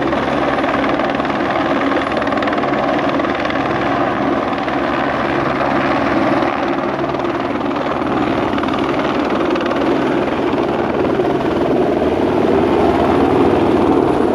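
Helicopter hovering low, a steady rotor and turbine noise that grows slightly louder near the end.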